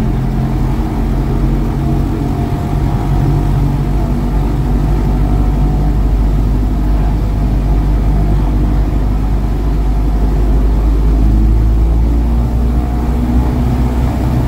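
Lycoming IO-390 four-cylinder aircraft engine of an RV-14 running up on the ground, heard from inside the cockpit, its revs rising gradually from about 1,300 to about 1,800 rpm. It is being run to warm the oil for an oil change.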